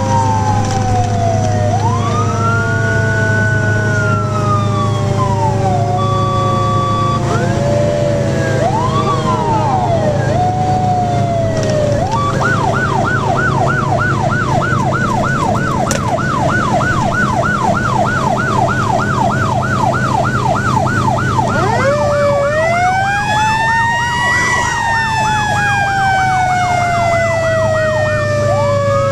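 Fire engine sirens heard from inside the cab: an electronic siren wails in slow rising and falling sweeps, then switches about twelve seconds in to a fast yelp of about three sweeps a second. Under it a mechanical siren's tone slowly winds down, spins back up near the end and falls away again, over the steady drone of the fire engine's engine.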